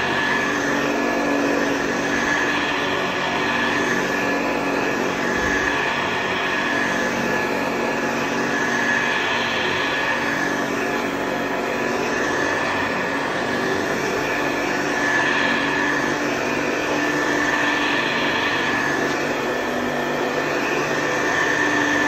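1964 Hoover Convertible Model 33 upright vacuum cleaner running on carpet: a steady motor and fan drone with a high whine, swelling and easing every couple of seconds as it is pushed back and forth.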